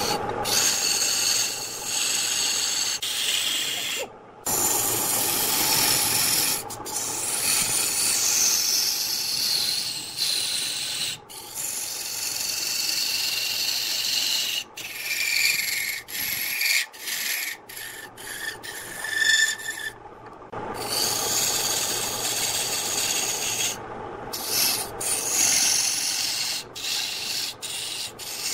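A turning gouge cutting into spinning wood on a lathe, a steady scraping hiss with a thin whistle in it, broken by several brief gaps as the cut stops and starts.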